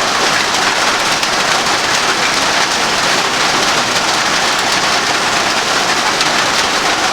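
Steady, heavy rainfall: a dense, even hiss of many drops that holds at the same level throughout.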